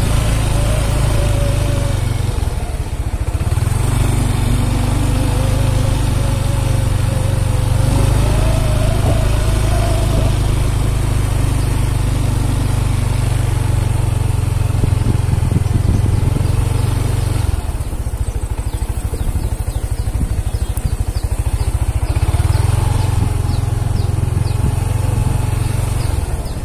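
A vehicle engine running on the move, its pitch wavering up and down, under a heavy steady low rumble of wind on the microphone.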